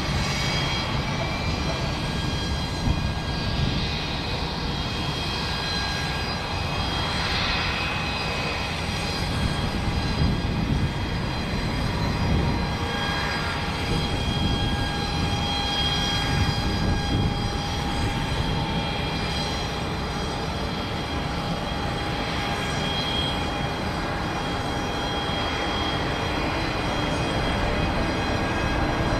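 Aircraft turbine engines running: a steady rushing noise with several high, steady whining tones over it.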